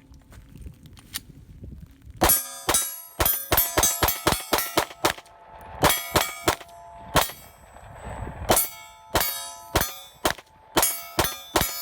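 A Glock 26 9mm pistol firing a rapid string of shots, several a second with short pauses, starting about two seconds in. Each hit sets the steel target plate ringing with a metallic clang.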